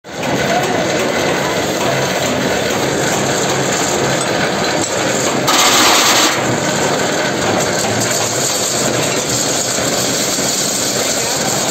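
Belt-driven lathe running with a steel disc for a mortar pan mounted on its spindle: a steady mechanical noise, with a louder rush of noise lasting under a second about five and a half seconds in.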